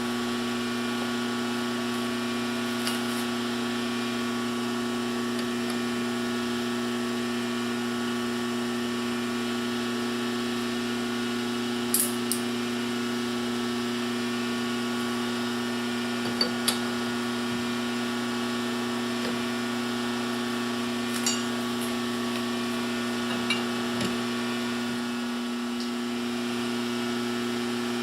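Metal lathe running with a steady hum from its motor and drive, broken by a handful of short sharp clicks.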